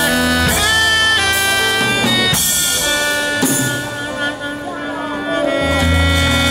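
Live band music: a saxophone playing held melody notes over electric guitar, keyboard and drum kit, with cymbal crashes around the middle. The music briefly thins out and then the bass comes back near the end.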